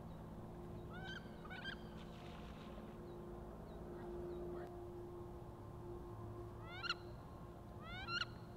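Wood ducks giving rising, squealing whistle calls: two about a second in and two louder ones near the end, over a faint steady hum.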